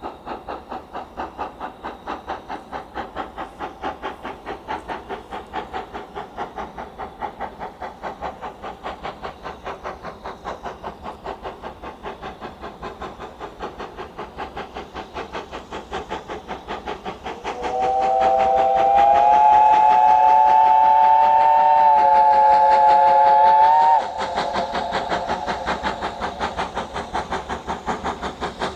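BR Standard Class 5 4-6-0 steam locomotive No. 73082 'Camelot' working a train, its exhaust beating in a steady rhythm of several beats a second. About two-thirds of the way through, its whistle sounds one long blast of about six seconds, which is the loudest sound here.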